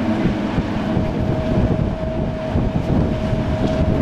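Wind buffeting the microphone on a moving cruise ship, a loud low rumble with a steady mid-pitched tone over it that cuts off near the end.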